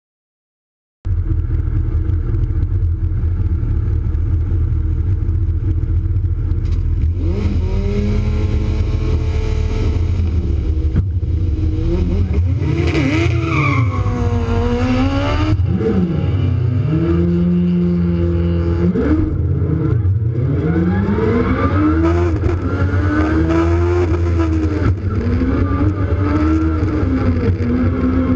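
A Peugeot 106 race car's Honda 1000 cc engine, heard on board. It starts about a second in and runs steadily over a heavy low drone, then from several seconds in its pitch climbs and drops again and again as it is revved and driven hard through the gears.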